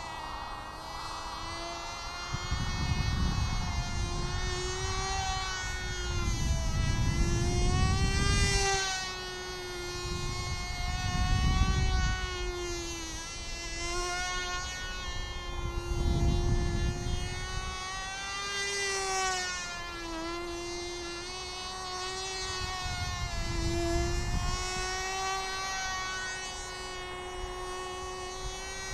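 Cox TD .010 glow-fuel two-stroke model engine running at full speed in a model plane flying overhead: a thin, high, insect-like buzz that rises and falls in pitch as the plane passes back and forth. Several bursts of low rumbling noise on the microphone are louder than the engine.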